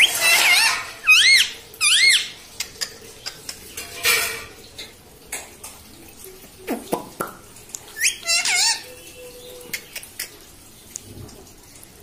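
Rose-ringed parakeet (Indian ringneck) giving shrill, arching squawks: a cluster in the first two seconds and another about eight seconds in. Short metallic clicks and taps come in between, from the bird's beak and feet on the wire cage bars.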